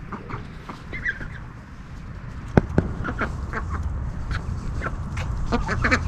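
Ducks giving short, soft quacks and clucking calls while they feed at a pile of grain. Two sharp knocks come close together about two and a half seconds in.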